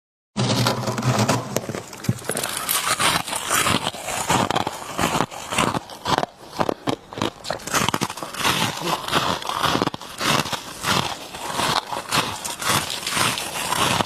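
Freezer frost being bitten and chewed: a dense, irregular run of crisp crunches and crackles.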